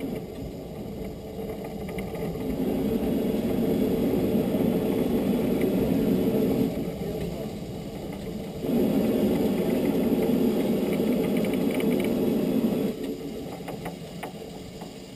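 Narrow-gauge Beyer Peacock steam tank locomotive standing and venting steam low down beside the cab, heard as a rushing roar in two long blasts of about four seconds each, both cutting off sharply. A few light clicks follow near the end.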